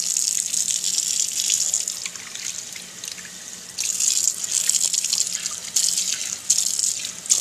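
Tap water running into a pot and splashing over wet paper sheets as they are rinsed. The flow is loud at first, drops off for a couple of seconds, then comes back about four seconds in with uneven surges.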